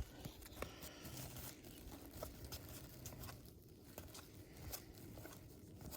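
Faint handling of trading cards and a foil or paper pack wrapper: quiet rustling and crinkling with scattered light clicks as cards are shuffled and slid.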